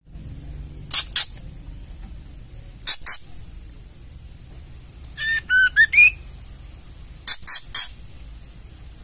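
Female white-rumped shama giving harsh, scratchy ketrekan chatter calls in short clusters: two about a second in, two near three seconds, a longer burst mixed with a few short whistled notes around five to six seconds, and three more near the end.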